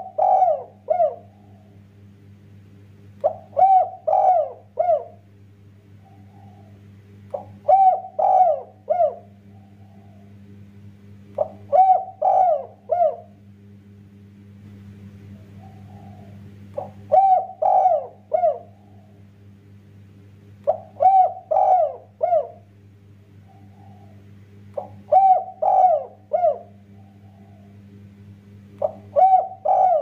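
Spotted dove (tekukur) cooing its song: short phrases of three or four coos repeated about every four seconds, each phrase often led by a soft single note.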